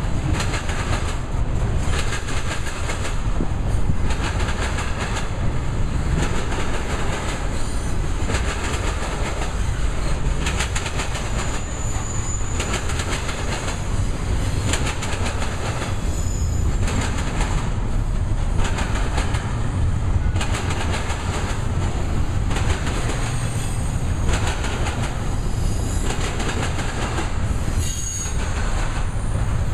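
Double-stack intermodal well cars rolling steadily past, their wheels clattering rhythmically over the track with a deep rumble. A few brief high wheel squeals come through along the way.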